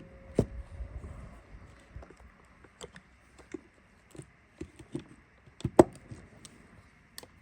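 Small clicks and knocks of hands at a motorcycle's plastic fuse box: a burnt fuse being swapped for a spare. The sharpest knocks come about half a second in and near six seconds.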